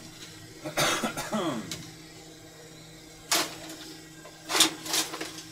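Rummaging through a small workbench drawer: a scraping slide about a second in, a sharp knock a little past three seconds, and two more clatters near the end, over a steady electrical hum.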